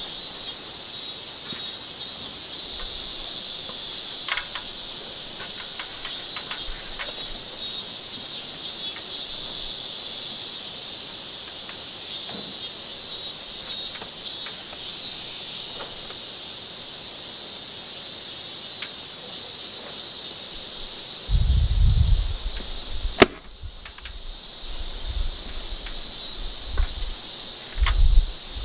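Several sharp snaps from a hand staple gun fastening wire lath to a wall, the loudest about two-thirds of the way through, with a few low thuds. A steady high-pitched chorus of insects runs underneath.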